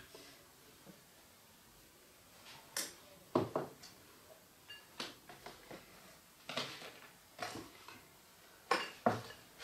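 Scattered light taps and clinks of a rice paddle working in a rice cooker pot and rice bowls being handled and set down on a wooden table, a dozen or so short knocks with quiet gaps between.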